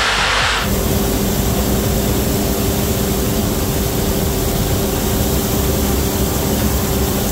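A brief rushing noise cuts off under a second in, giving way to a combine harvester running steadily while picking up swathed canola. It is a steady machine hum with several held tones, heard close to the pickup header and its table auger.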